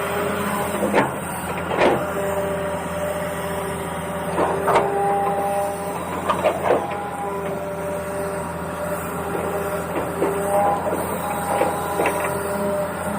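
Small electric motors of an RC toy excavator whining, the pitch stepping between a few steady tones as different functions start and stop, with a handful of sharp clicks and knocks.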